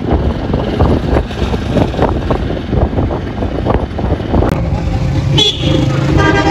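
Engine and road noise of a moving vehicle driving along a highway, a steady rumble. A vehicle horn sounds briefly near the end, as one held pitched tone.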